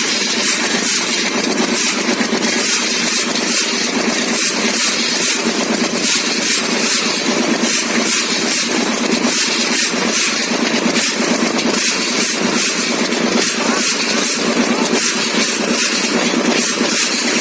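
A small motor running steadily, with a fast, even pulsing and no change in speed.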